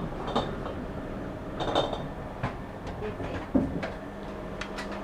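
Steady mechanical hum with scattered knocks and clatter, a few of them louder, about two seconds in and again about three and a half seconds in.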